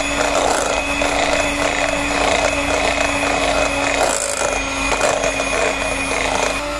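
Electric hand mixer running steadily, its wire beaters whisking liquid in a ceramic bowl. Near the end the motor's note shifts and drops a little.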